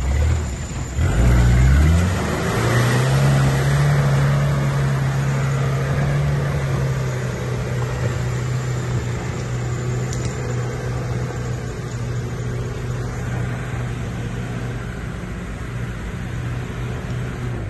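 Off-road 4x4 engine revving up sharply about a second in, then running at steady revs, slowly easing off toward the end.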